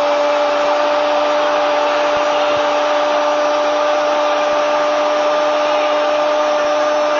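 A football commentator's long, sustained "gooool" cry held on one steady pitch, over a cheering stadium crowd celebrating a goal.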